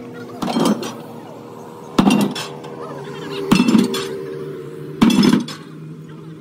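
Steel truck leaf-spring leaves being laid onto a stack in a steel pickup bed, clanking four times about a second and a half apart, each clank ringing briefly.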